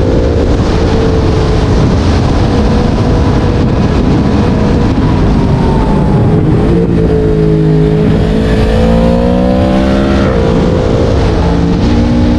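Yamaha MT-10's crossplane inline-four engine running loud through a LeoVince decat exhaust on the move. The engine note falls for a few seconds past the middle, climbs again, then drops sharply and settles.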